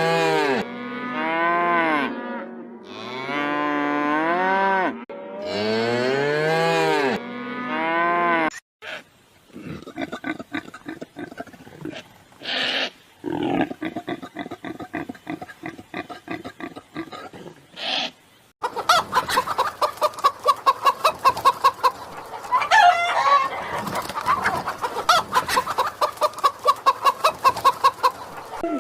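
A succession of different animal calls. First, repeated pitched calls, each about a second long, rising and falling in pitch. Then a run of short pulsed calls, and from about two-thirds of the way in, a fast rattling series of pulses over a steady pitch.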